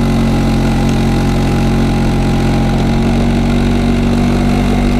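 A 1960 Vespa scooter's two-stroke single-cylinder engine running at a steady, unchanging pitch while the scooter is ridden along.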